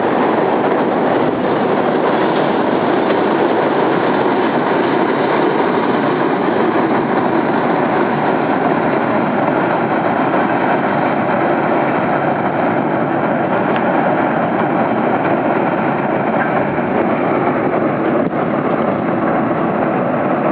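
CN freight train rolling by with a steady, continuous rumble of wheels on rail.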